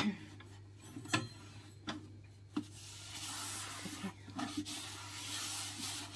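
A wet wipe rubbing against the inside of a Gourmia air fryer's drawer compartment as it is cleaned. There are a few light knocks in the first half, then a continuous scrubbing sound for the last three seconds.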